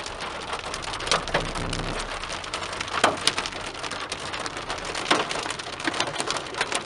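Hail and rain drumming on a car's roof and windshield, heard from inside the cabin: a dense patter broken by many sharp, irregular strikes.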